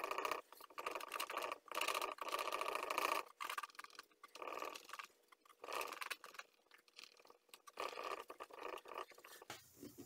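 A microfiber cloth rubbed in quick back-and-forth strokes over the gloss-finished back of a semi-hollow IYV IJZ-300 electric guitar, polishing it, with short pauses between bouts of rubbing.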